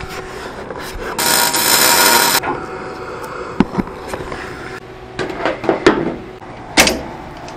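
Electric arc tack-welding of steel with an Everlast welder: a loud crackling hiss starts about a second in and lasts just over a second, followed by a quieter hiss, then a few sharp metallic clicks and knocks.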